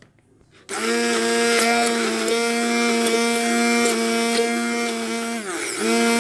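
Electric hand blender switching on about a second in and running steadily with a motor whine while whipping body butter. Near the end it briefly slows and falls in pitch, then speeds up again.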